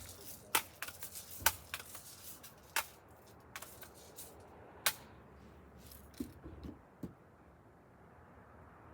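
A series of sharp mechanical clicks and snaps from a BB gun being handled and shot, about a dozen at irregular spacing, the loudest about a second and a half in and again near five seconds, then quiet near the end.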